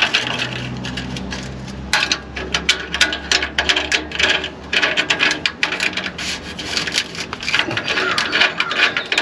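Irregular scraping, rubbing and clinking of metal exhaust parts and hardware being handled and fitted, with a low steady hum through the first few seconds.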